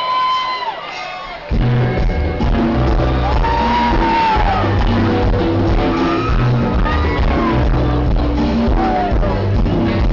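Crowd shouting and whooping, then a live band comes in loud about a second and a half in, with heavy bass and drums, and the crowd keeps shouting over the music.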